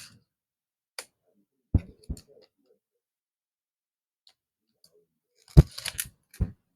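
Scattered computer mouse clicks, single sharp clicks a second or so apart, some with a dull knock on the desk, then a quicker run of clicks about five and a half seconds in.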